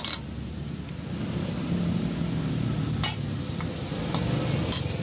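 Steady low background rumble, with a few sharp clinks of a metal spoon against a stainless-steel mixing bowl: one at the start, one about three seconds in and one near the end.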